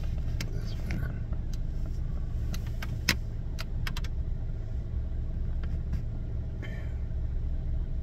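Car engine idling, heard from inside the cabin as a steady low hum, with a few light clicks scattered through it.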